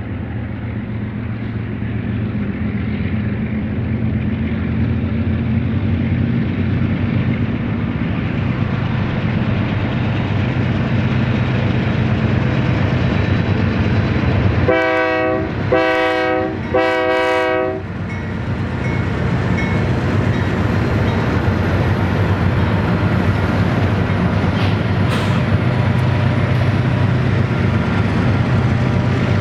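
Union Pacific freight train's diesel locomotives running with a steady drone. About halfway through, the locomotive horn sounds three short blasts in quick succession.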